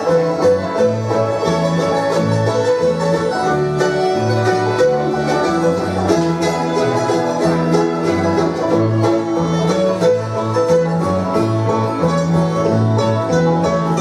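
Acoustic bluegrass band playing an instrumental break between verses, the banjo prominent over strummed guitar and a steady alternating bass line.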